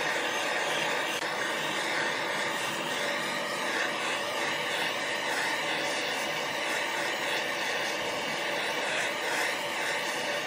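Handheld twin-nozzle gas torch burning with a steady hiss, its flame scorching the surface of a turned wooden vase.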